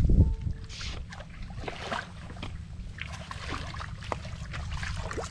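Footsteps wading through shallow, muddy water: irregular splashes and sloshes.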